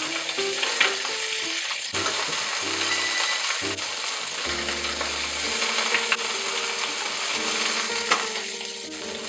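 Whole small fish sizzling steadily as they pan-fry in hot oil, with a few light clicks of tongs and a wooden spatula against the pan as the fish are turned. Soft background music plays underneath.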